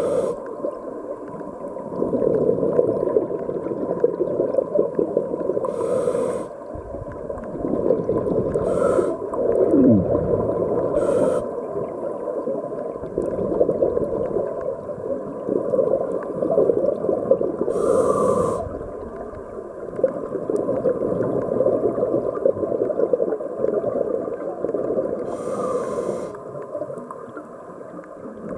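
Scuba diver breathing through a regulator, heard underwater: a short hiss of inhaled air every few seconds, and between them the bubbling rumble of exhaled air that swells and fades.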